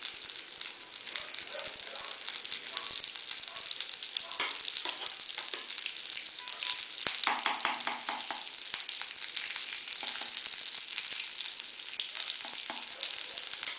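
Curry leaves sizzling in a little hot oil with spluttered mustard seeds in a kadai: a steady frying hiss with many small crackles. This is the tempering (tadka) stage of cooking sambar.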